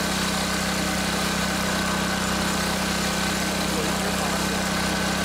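Small gasoline pressure washer engine running steadily at constant speed, an even hum with no change in pitch or level.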